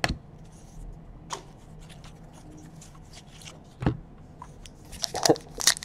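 Trading cards being handled and squared up in the hand: faint sliding with a few sharp taps, then a quick run of crackling ticks near the end as a foil pack is picked up.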